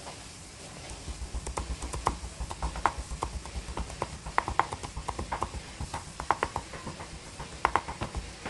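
Knife mincing red chillies, garlic and ginger on a round wooden chopping board: a quick, uneven run of knocks of the blade on the wood, several a second, starting about a second in.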